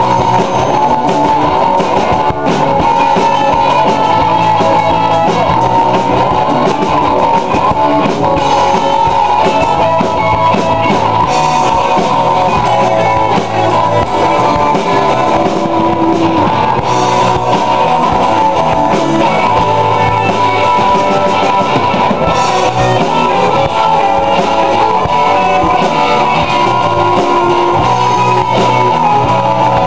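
Rock music played loud and without a break, with guitar and drum kit.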